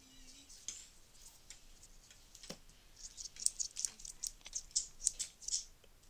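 Small plastic clicks from a pink plastic marble-track fidget toy, its marbles gone, being twisted and worked in the fingers: a few scattered clicks, then a quick dense run of sharp clicks from about three seconds in.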